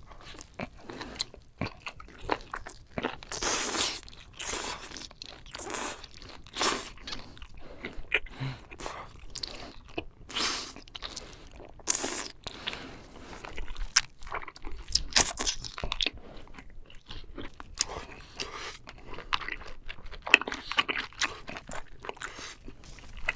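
Close-miked mukbang eating: a person biting and chewing octopus from a seafood platter, a run of irregular wet crunches and mouth sounds.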